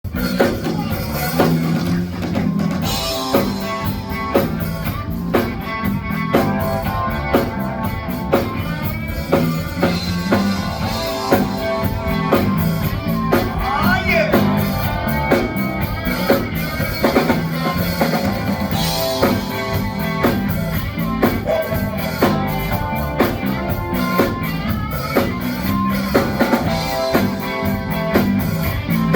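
Live band playing rock music: a drum kit keeping a steady beat under bass and electric guitar.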